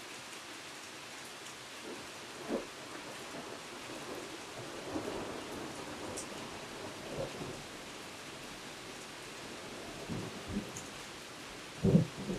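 Steady rain falling, with thunder breaking in as several short, low rumbles, the loudest near the end.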